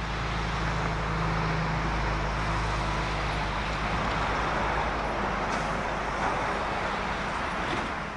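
Jet engines of a Boeing 767-300ER at takeoff thrust as it climbs out after takeoff: a steady, broad rumbling rush that eases slightly near the end.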